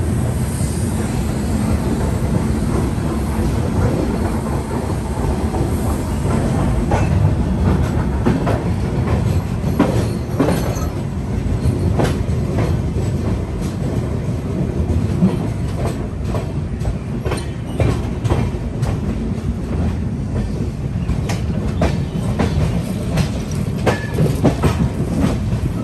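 Express passenger train running out of a station, heard from on board at an open coach door: a steady rumble with the wheels clicking over rail joints. The clicks come more often from about seven seconds in.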